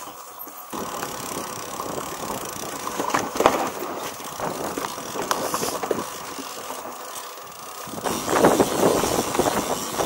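Mountain bike riding over a rough, rocky grass trail: tyres crunching and the bike rattling and clicking over bumps, with wind buffeting the microphone. The rattling gets louder and busier about eight seconds in.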